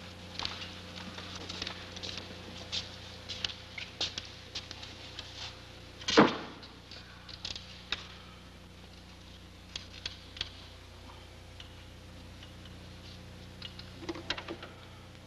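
Scattered short clicks and knocks over a steady low hum, with one much louder knock about six seconds in and a small cluster of clicks near the end.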